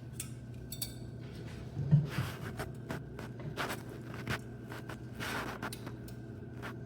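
Handling noises as a fan is fitted onto a tower CPU cooler's heatsink: scraping and short clicks, with a thump about two seconds in.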